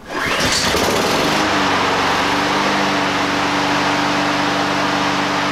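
Brand-new Honda HRN216 lawn mower's single-cylinder four-stroke engine (Honda GCV170), with automatic choke, pull-started and catching on the first pull. It settles into a steady run about a second and a half in.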